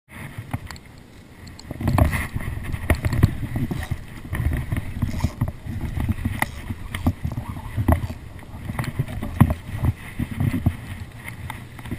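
Irregular knocks, clicks and low rumbling: handling noise on a camera held close to a fishing rod as a hand works the spinning reel.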